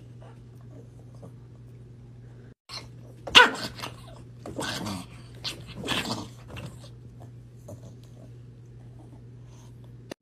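Small dog barking up at a cat: a few short barks, the loudest about three seconds in and two more in the next three seconds, over a steady low hum.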